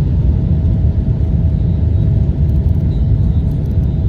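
Steady low rumble of a Boeing 777's engines and airflow heard inside the passenger cabin. A faint steady whine joins about a third of a second in and holds.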